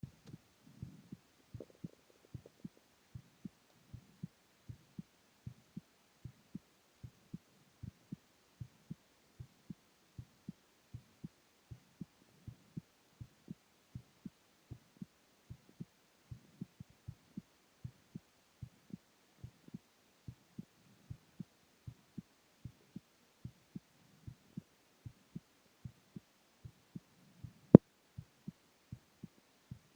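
A man's resting heartbeat, lying down: a steady run of low, soft thuds, a little faster than one a second. Near the end a single sharp click, louder than the beats, cuts in once.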